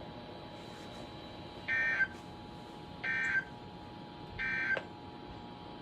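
Emergency Alert System end-of-message data bursts: three short bursts of two-tone digital chirping, about 1.4 s apart, that signal the end of the broadcast severe thunderstorm warning.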